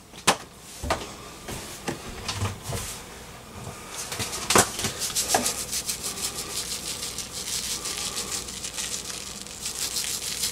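A few separate clicks and knocks from handling spice containers, then about four seconds in a fast run of gritty rasping ticks as pepper and seasoning salt are dispensed over raw shrimp.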